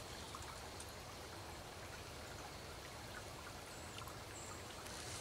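Quiet outdoor background: a faint, steady hiss with a few soft ticks.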